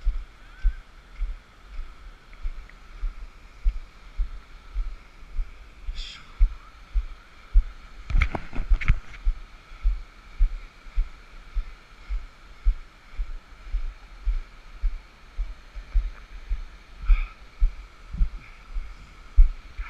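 Even, muffled low thumps, about one and a half a second, the footsteps of a person with a body-mounted camera walking over granite slab. A few sharper knocks come about eight seconds in.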